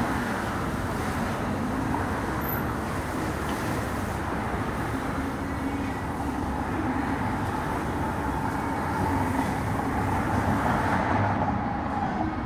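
Steady low rumble and hum of motor vehicle traffic.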